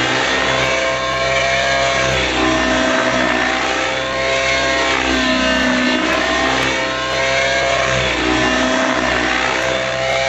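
Glow (nitro) engine RC helicopter flying 3D manoeuvres. Its engine and rotor whine swoop down in pitch and climb back up several times, with the deepest dip about halfway through.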